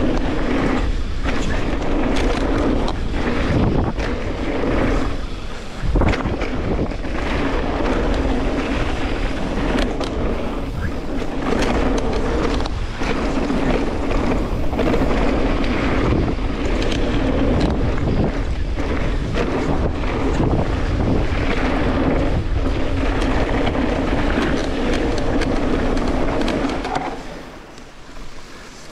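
Wind buffeting an action-camera microphone over the rumble of an electric mountain bike's tyres on a dirt trail at speed. There are a few hard knocks from the bike over the ground, the heaviest about six seconds in. The noise drops away sharply a couple of seconds before the end.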